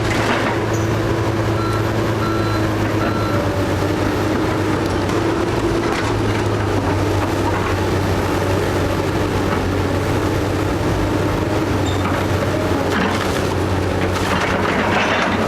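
Heavy demolition machinery running steadily as a house is torn down. Three short beeps of a reversing alarm come about two seconds in, and wood cracks and splinters near the end.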